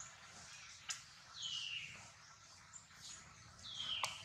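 Baby macaque crying: two high, falling cries, each about half a second long, with a couple of sharp clicks in between.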